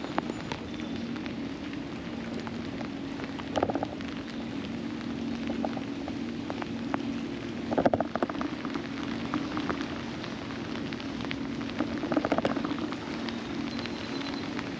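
Steady rain over a constant low hum, broken by a short, louder rattling burst about every four seconds.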